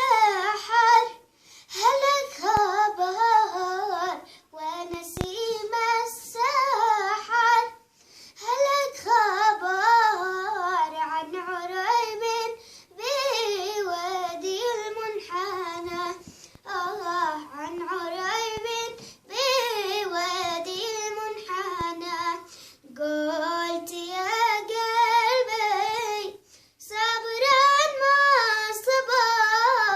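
A young girl singing a Yemeni song solo, unaccompanied, in a wavering, ornamented melody. She sings in phrases of a few seconds, with short breaks for breath between them.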